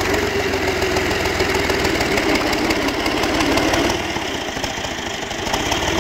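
New Holland Ghazi 65 hp tractor's diesel engine running steadily under load with a fast, low pulsing beat, pulling an 11-tine cultivator through a flooded field. It drops a little in level about four seconds in, then swells again near the end as the tractor comes closer.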